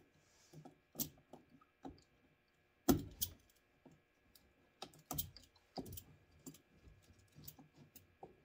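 Scattered clicks and knocks of hard plastic as hands work a washer fluid pump and its wiring connector loose from the washer reservoir, the loudest knock about three seconds in.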